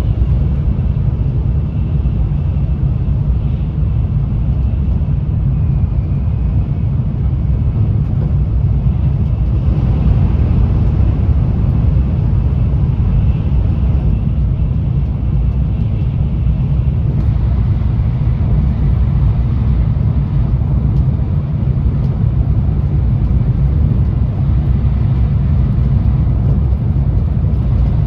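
Running noise of a Tokaido Shinkansen N700A train, heard inside the passenger car: a steady low rumble with a faint high tone above it.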